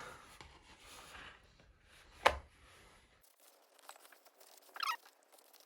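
Faint rustling and handling noises, with one sharp click about two seconds in.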